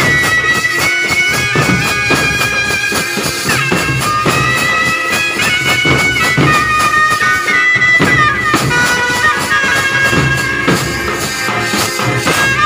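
Street band music: a shrill reed wind instrument plays a melody of long held notes over big bass drums and side drums beaten with sticks.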